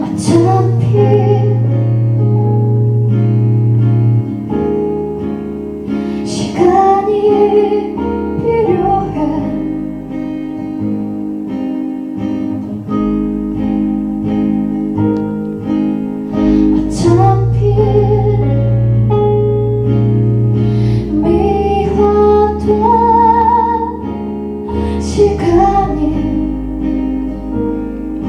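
Live band playing a song's introduction: acoustic guitar strumming over a bass line that changes note every few seconds, with a gliding melody line on top.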